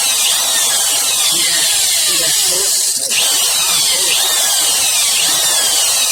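Hyper Tough corded reciprocating saw running steadily, its motor whine repeatedly falling in pitch about once a second over a steady buzz.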